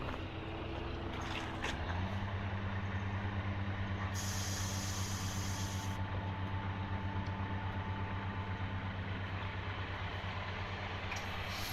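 Cat 345D L excavator's diesel engine (Cat C13) running steadily; about two seconds in its pitch steps up and it gets louder as it takes on load, then holds. A hiss sounds for about two seconds partway through.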